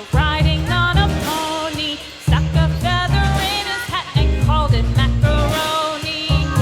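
Background pop song with singing over a steady bass and drum beat.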